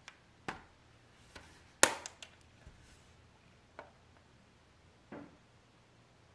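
Metal Blu-ray steelbook case being closed by hand: a few clicks and clacks, the loudest a little under two seconds in as the lid shuts. Lighter taps from handling the closed case follow near four and five seconds in.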